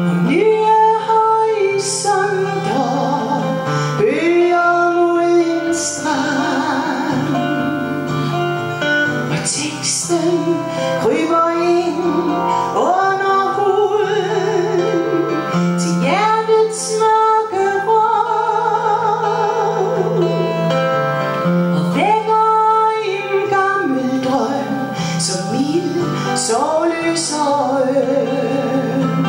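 Live song: a woman sings held notes with vibrato, accompanied by a strummed acoustic twelve-string guitar and an electric guitar.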